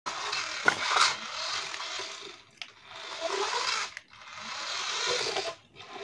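A toy remote-control car's small electric motor and gears whirring as it drives across a tiled floor. It comes in three runs of one to two seconds with short stops between them, and a few sharp clicks.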